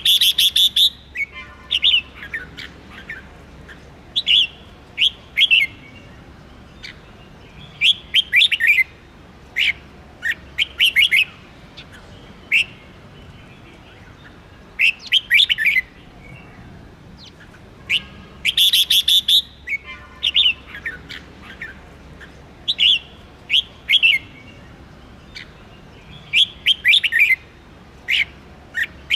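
Red-whiskered bulbul singing: short bursts of quick, sliding whistled notes every second or two, with brief pauses between phrases.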